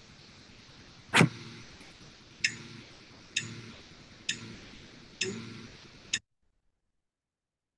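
Nylon-string classical guitar plucked one note at a time, about one sharp attack a second, each note ringing on briefly. The sound cuts off suddenly near the end.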